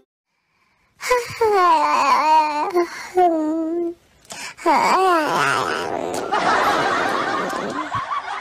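Laughing in high, wavering, sing-song peals that start about a second in, with a short break near the middle. It ends in a breathier, hissing laugh that fades away.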